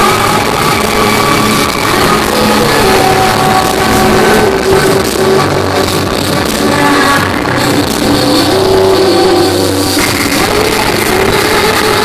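Loud electronic dance music from a DJ set, played over a club sound system; the mix shifts about ten seconds in.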